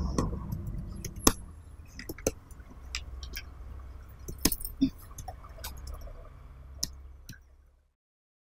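Scattered light clicks and clinks of small items being handled at a dressing table, at irregular intervals over a faint low hum, fading out near the end.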